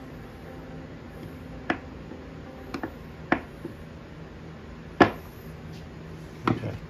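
Scattered sharp clicks and taps of a screwdriver working in a Mercury 650 outboard's metal fuel pump body, and of the pump being handled on the bench, the loudest about five seconds in. A steady low hum runs underneath.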